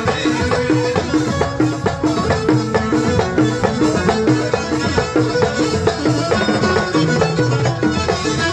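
Live Moroccan Amazigh rways folk music played loud through a PA: a stringed instrument over a steady, evenly repeating drum rhythm.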